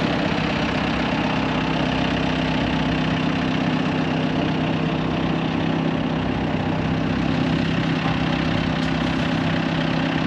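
Heavy equipment engine running steadily at a constant speed, with an even low hum.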